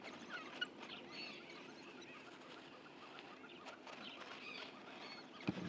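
African wild dogs' faint high-pitched twittering chirps and squeaks, short calls scattered over low background noise.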